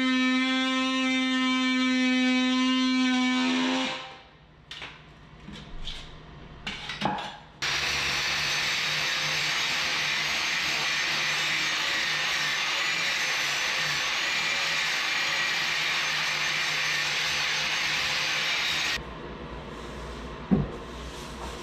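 A cordless drill's motor whines at a steady pitch for about four seconds, then winds down and stops. A few light knocks and clicks of tool handling follow. From about eight seconds in, a steady rushing machine noise with a faint high whine runs until it cuts off abruptly, leaving quieter room sound and one knock near the end.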